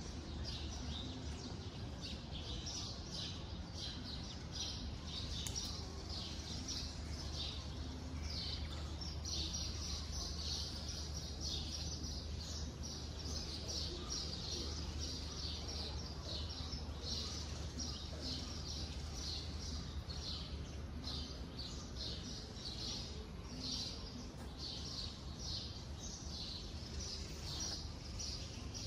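Small birds chirping in a dense, continuous chorus of short high notes, over a steady low hum.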